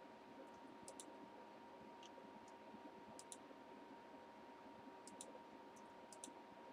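Faint computer mouse clicks, mostly in quick pairs every second or two, over near-silent room tone with a faint steady hum. They are the clicks of repeatedly running an online list randomizer.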